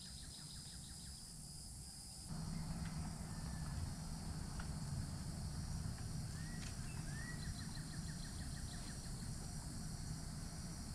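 Rural outdoor ambience: a steady high drone of insects, with a couple of short bird chirps about six and seven seconds in. A low rumble rises in about two seconds in.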